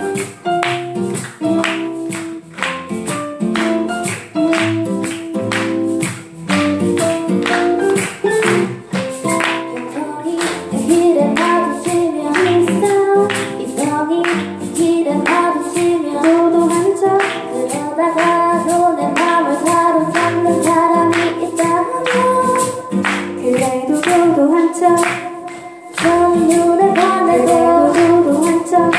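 A small band playing a song live: a singing voice over instruments, with a steady percussion beat.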